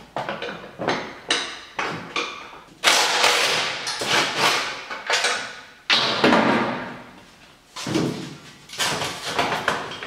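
Irregular clunks, knocks and scrapes of metal and plastic parts while the front bumper of an ATV is unbolted and worked loose: a run of sharp knocks with longer scraping rattles between them.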